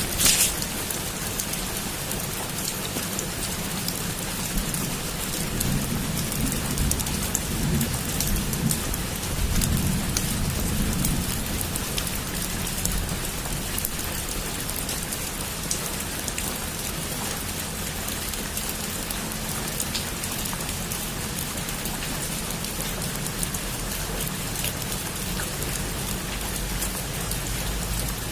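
Heavy rain drumming steadily on a roof: a dense hiss scattered with sharp individual drop hits, with one loud splash right at the start. A low rumble swells and fades between about five and eleven seconds in.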